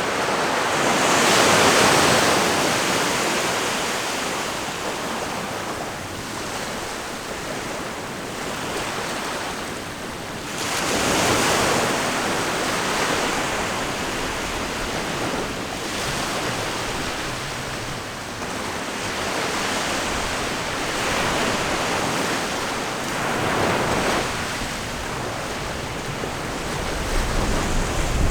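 Ocean surf: waves breaking and washing in, rising and falling in swells every few seconds, the biggest about two seconds and eleven seconds in.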